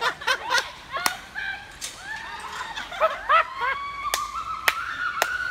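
A woman's distant, high scream as she drops and swings out on a canyon swing rope. It is held long and steady in the second half. Sharp clicks and snaps are scattered throughout.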